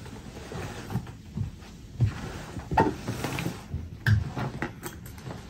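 A large, lightweight hard-shell suitcase being handled and tipped over on carpet: a few dull knocks of the shell and wheels, the loudest about two, three and four seconds in, with a rubbing swish of a hand across the plastic shell around the middle.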